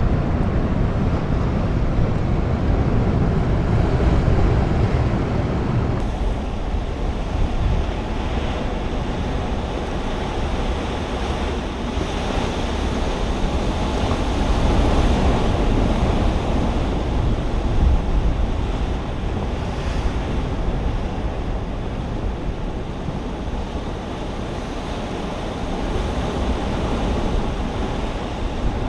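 Wind buffeting the microphone over the steady wash of ocean surf. The low wind rumble eases somewhat about six seconds in.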